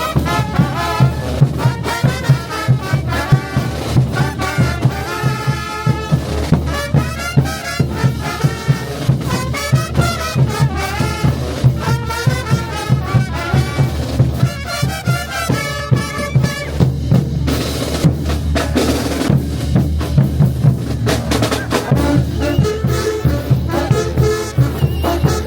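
Brass band playing: trumpets and trombones carry a melody over a steady beat of bass drum and snare drum.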